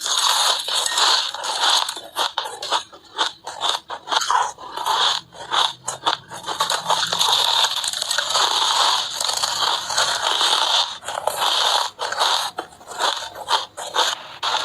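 Close-up crunching of snow being bitten and chewed, a dense crackling crunch broken by many short pauses between bites.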